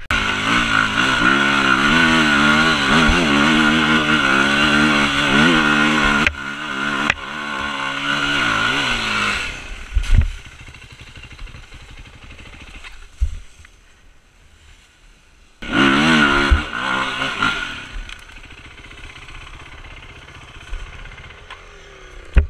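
Yamaha WR450F's four-stroke single-cylinder engine revving hard and unevenly for several seconds, easing briefly, then revving again until a sharp thump. The engine then runs low and quiet, gives one short burst of revs, and drops back to a low run.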